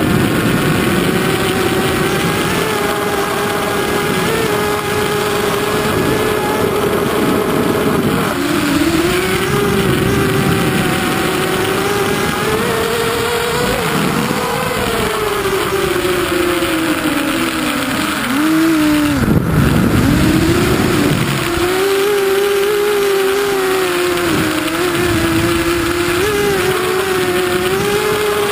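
Hexacopter's electric motors and propellers buzzing steadily as it flies, heard from the onboard camera, the pitch rising and falling with the throttle. About two-thirds of the way through the pitch drops sharply twice and climbs back.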